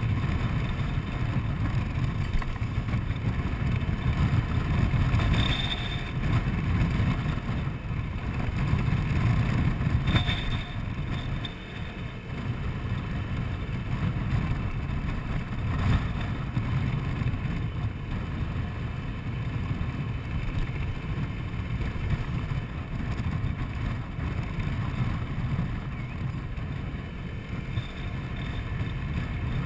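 Honda Forza 125 single-cylinder scooter being ridden, its engine and road noise under a steady, gusting wind rumble on the camera's microphone.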